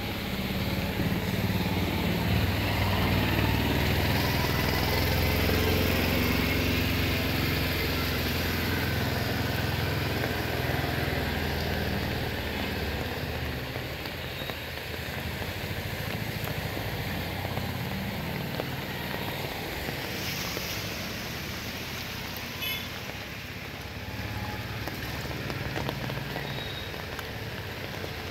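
Motor vehicles driving through floodwater on a flooded street: an engine hum, loudest in the first half and fading after about the middle, over a steady wash of water spray from the wheels.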